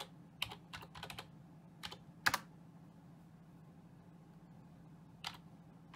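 Keystrokes on a computer keyboard as a login password is typed: a handful of separate key clicks over the first two and a half seconds, one louder than the rest, then a pause and a single click near the end.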